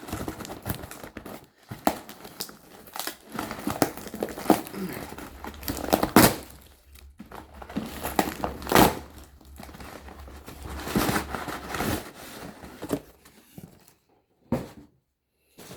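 Packaging crinkling and rustling as a cardboard parcel is opened by hand, in irregular bursts with sharp crackles and a few louder swells, dying away near the end.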